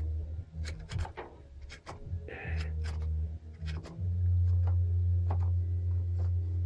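Adjustable hand reamer being turned by hand in a Harley Ironhead connecting rod's wrist-pin bushing, making irregular metallic clicks and ticks as it cuts, with a brief scrape a little past two seconds in. A steady low hum underlies it.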